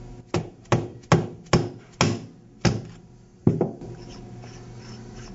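Mallet tapping a seal installation tool about seven times over three and a half seconds, driving a hoop ring down into a waterjet intensifier's high-pressure cylinder behind the high-pressure seal.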